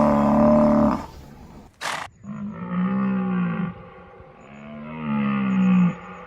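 Animal calls: a loud pitched call ends about a second in, a short click follows, then two long pitched calls that each rise and fall in pitch.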